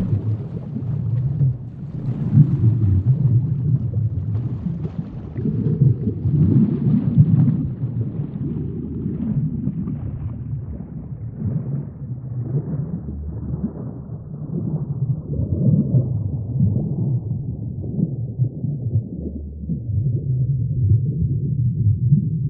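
Deep, low rumbling ambient drone that swells and ebbs every few seconds, the kind of soundscape laid under a relaxation video.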